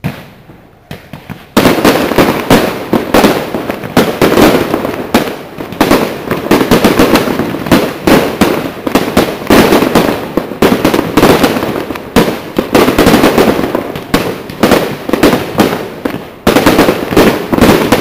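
Aerial fireworks display: one bang opens, a few scattered bangs follow, then about a second and a half in a dense, rapid barrage of shell bursts and crackling breaks out and keeps going, easing briefly near the end before building again.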